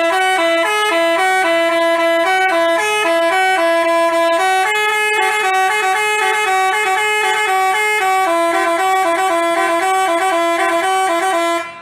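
A Basuri telolet multi-tone bus horn playing a melody of short held notes that step up and down. It starts and stops abruptly.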